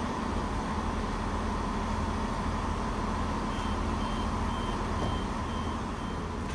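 Diesel multiple unit idling at the platform with a steady low hum. From about halfway through, a short high beep repeats about twice a second.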